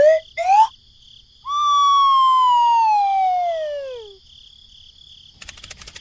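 Cartoon whistle sound effects: a few short rising whistle notes, then one long falling whistle lasting about two and a half seconds. A faint rapid rattling starts near the end.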